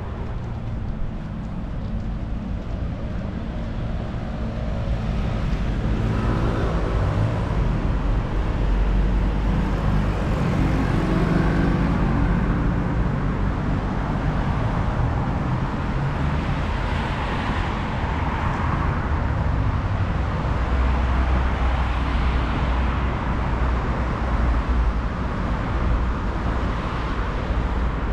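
Street traffic noise: motor vehicles running and passing, growing louder about six seconds in.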